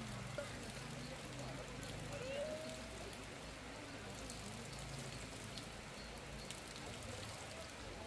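Open-air market background: a steady wash of noise with a low hum, faint distant voices, and scattered light ticks.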